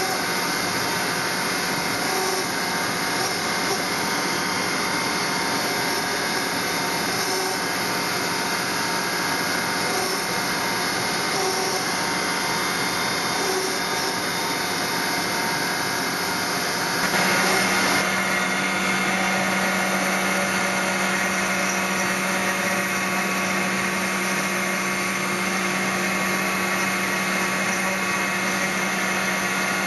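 Newing Hall Pantocut CNC machine's spindle running, its small cutter grinding into Portland stone, making a steady machine hum with a gritty hiss. About 17 seconds in the tone shifts and the sound grows slightly louder.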